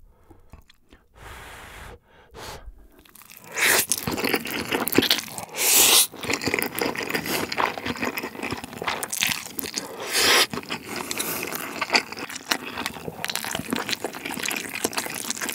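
Close-miked slurping and chewing of spicy stir-fried Buldak fire noodles. Loud slurps start about three and a half seconds in, with wet chewing between them.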